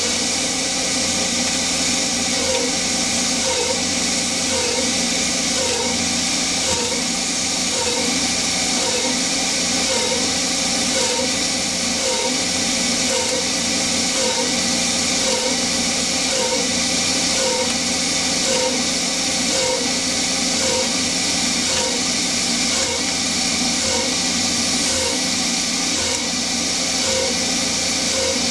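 Hercus PC200 benchtop CNC lathe turning 6061 aluminium, with a Noga air mister hissing steadily at the cutting tool and an air compressor running. A faint short tone repeats about once a second.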